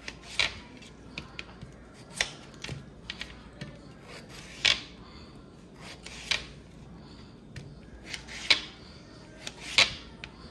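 Kitchen knife cutting through raw potatoes onto a cutting board, a sharp knock with each cut, about six cuts at uneven intervals.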